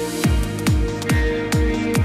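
Electronic dance music: a deep kick drum comes in about a quarter second in and beats a little over twice a second under a held synth chord.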